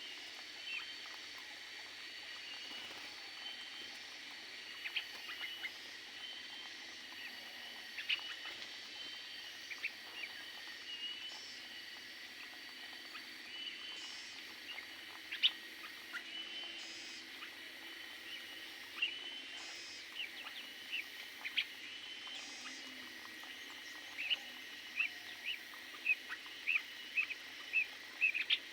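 Small cage birds chirping with short, high calls, scattered at first and then coming in a quick regular run of about two a second near the end.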